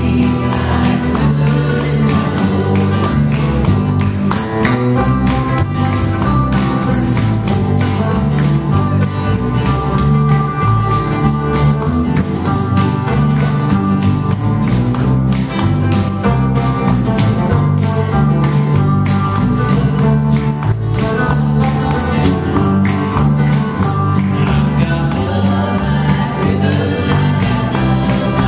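Live band playing an up-tempo song on electric bass and acoustic guitars, with a steady percussion beat.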